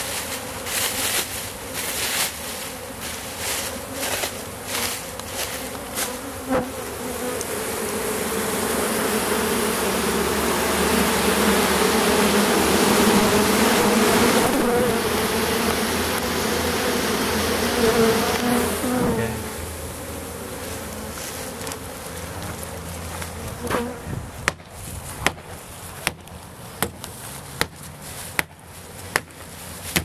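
A colony of honey bees nesting in a wall cavity buzzing, swelling as the opened nest is approached, loudest in the middle, then falling back about 19 s in. From about 24 s a series of sharp knocks comes at less than a second apart over the lower buzzing.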